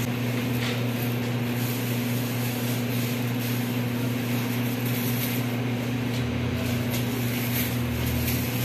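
Steady low electrical hum of running machinery, a constant drone over a background hiss; a deeper rumble joins for a couple of seconds near the end.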